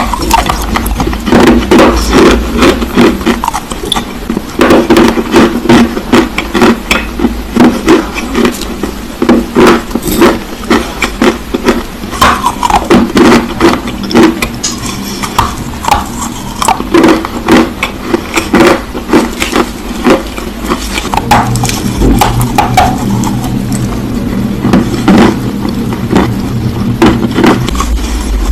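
Black clay being bitten and chewed, a dense run of sharp crunches and cracks that goes on throughout.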